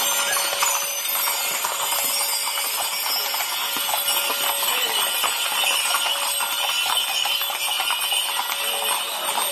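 Hooves of several ridden horses clip-clopping on a paved street, mixed with a steady jingling of bells.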